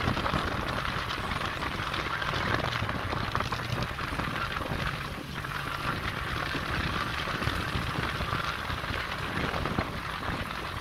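Motorcycle riding along at a steady speed: the engine runs under a constant rush of wind noise on the microphone.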